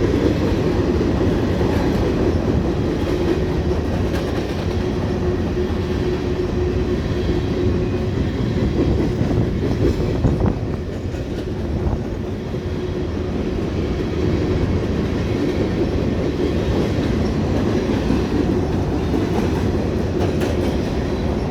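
Long freight train's cars rolling past at a crossing, a steady rolling noise of wheels on rail with a thin steady whine running through it.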